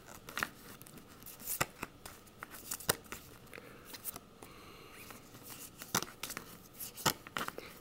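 Pokémon trading cards being flipped through by hand: irregular sharp clicks and snaps of card stock, with a short sliding scrape about halfway through.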